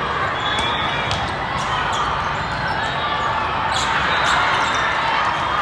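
Volleyballs smacking and bouncing on a hard indoor court floor, a dozen or so sharp hits, over the steady din of a large hall.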